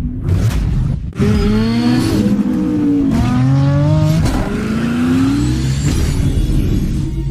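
Car engine revving, its pitch climbing and dropping several times, after a few short noisy strokes in the first second.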